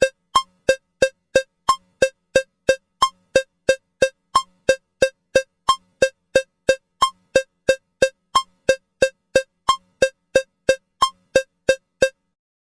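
Metronome cowbell clicks at 180 beats a minute, three strikes a second, in 4/4 with every fourth strike sounding a little different as the bar's downbeat. The clicking stops shortly before the end.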